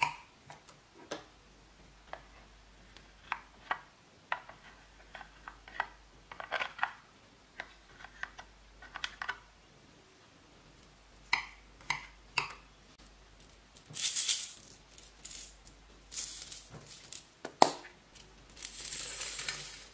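A metal slime tool clicking and scraping against a glass dish and a plastic makeup palette as makeup is worked into glittery slime: a scatter of short clicks and scrapes. A sharp click comes a little before the end. Near the end, small plastic beads in a clear container rattle for about a second.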